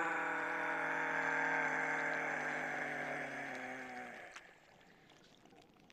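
A low, steady droning tone with several even overtones, slowly fading and ending about four seconds in.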